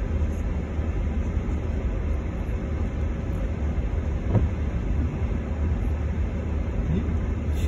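Steady low rumble of a car heard from inside its cabin, engine and tyres on a wet, waterlogged road, with an even wash of noise over it.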